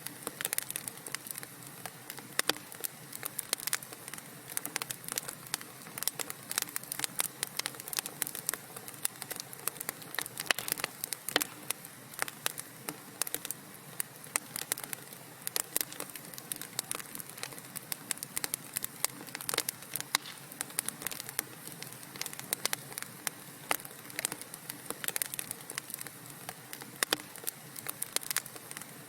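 Burning wood in a fireplace crackling, with many irregular sharp pops and snaps over a steady soft hiss.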